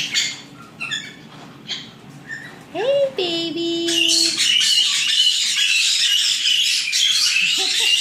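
Young white-bellied caiques calling: a few short chirps at first, then from about four seconds in a loud, continuous chorus of shrill, overlapping chatter from several birds.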